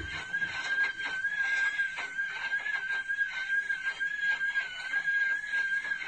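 Haier front-loading drum washing machine making its abnormal noise: a steady high-pitched squeal at one pitch, wavering slightly, over irregular clicking and knocking. The repairman has ruled out a broken drum spider (tripod), the shock dampers and the door seal rubbing as the cause.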